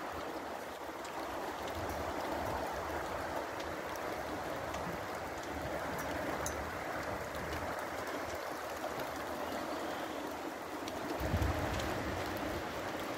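Steady rushing of a swollen, muddy river running high, mixed with falling rain and scattered faint ticks of drops. A brief low rumble comes near the end.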